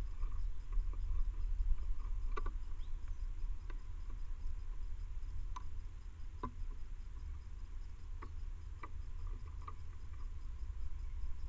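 Scattered soft clicks and taps, about one or two a second, with a few faint short bird chirps, over a steady low rumble.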